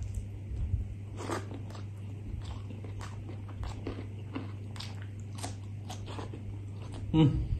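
Close-up eating sounds: a person biting and chewing a mouthful of rice and curry, with many small, irregular crunches and wet mouth clicks over a low steady hum.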